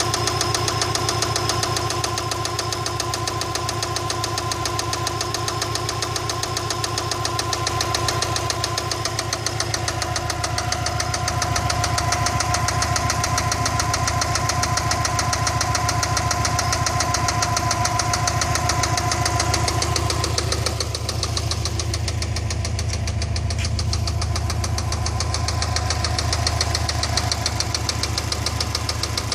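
Subaru EJ206 flat-four engine running steadily with a continuous rhythmic knock, the unexplained knock the owner is trying to identify. The higher part of the sound dulls a little about two-thirds of the way through.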